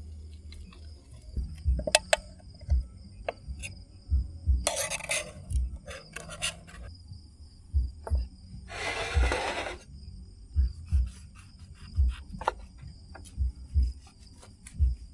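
Insects chirring steadily in a high, even drone, with soft knocks and clicks and three short rustling noises from nearby handling.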